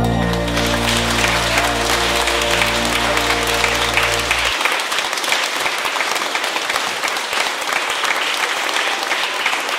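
Audience applauding steadily, with sustained low music notes underneath that stop suddenly about four and a half seconds in.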